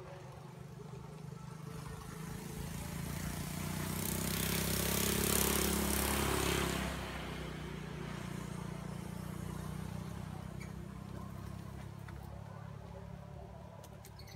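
A motor vehicle driving past. Its engine noise builds to a peak about five to seven seconds in, drops off sharply, then slowly fades.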